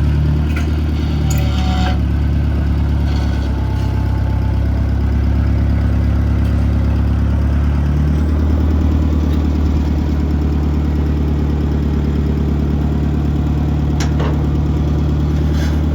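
An engine idling steadily with a low, even running note; its pitch shifts slightly about eight seconds in.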